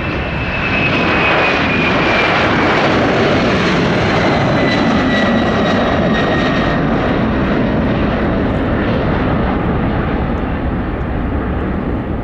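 Twin-engine Boeing 767-300ER jet airliner departing at takeoff power: loud, steady jet engine noise that swells about a second in, with a high fan whine that slowly falls in pitch as it passes.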